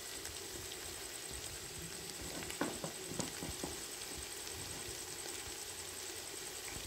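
Low, steady sizzling of bitter gourd, onion and tomato frying in a kadhai, with a couple of faint clicks about halfway through.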